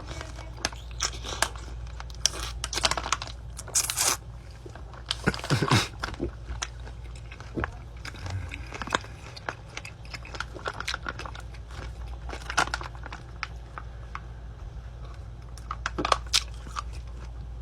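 A person biting into and chewing a crunchy pickle close to the microphone: irregular wet crunches and clicks throughout.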